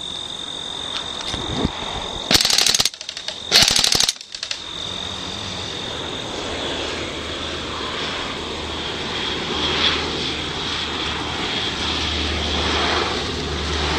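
Military aircraft passing low overhead: a steady engine rumble that slowly grows louder as it approaches. About two to four seconds in there are two short, loud crackling bursts.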